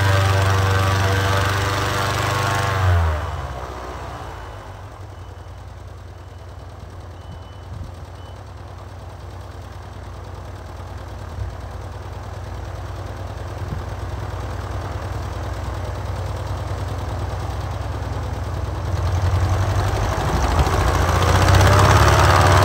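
An engine running at high revs is throttled back sharply about three seconds in, settles to a low idle, then revs up again and grows loud near the end.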